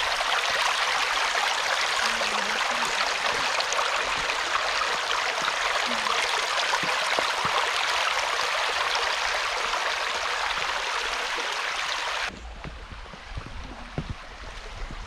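Shallow creek water running and burbling over rocks in a steady rush. It cuts off suddenly about twelve seconds in, leaving much quieter sound with a few light knocks.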